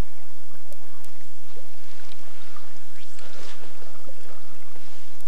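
Steady low hum and even hiss from the soundtrack of an old VHS tape recording, with faint river ambience underneath.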